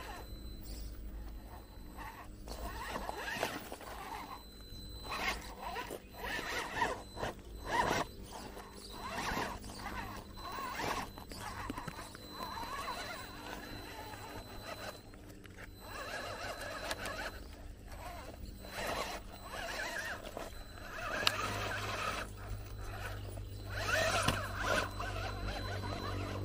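Radio-controlled 1/10 rock crawler climbing rock: its motor and gears whine in uneven spurts as the throttle comes and goes, with scattered knocks and scrapes of tyres and chassis on stone.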